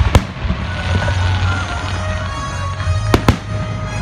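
Fireworks shells bursting: a sharp bang just after the start and two more in quick succession about three seconds in, over music playing throughout.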